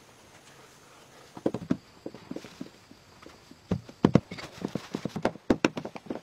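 Irregular dull thumps and pats on earth as grass sods are laid and pressed down by hand. A few come about a second in, and they grow busier from about three and a half seconds on.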